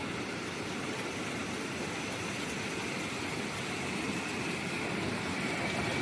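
Bean sprout washing machine running during a test, a steady mechanical noise that holds even throughout.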